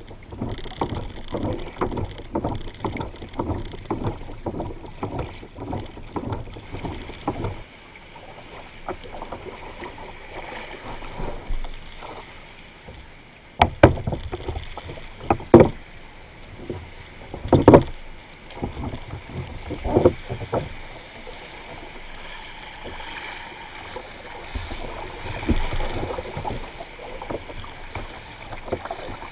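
Water sloshing and splashing around a small boat, choppy at first. About midway there are four loud, sharp knocks a couple of seconds apart.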